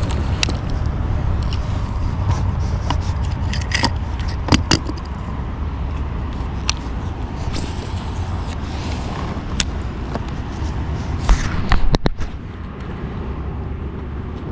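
Steady low rumble of wind on the microphone, with a scattering of sharp clicks and knocks.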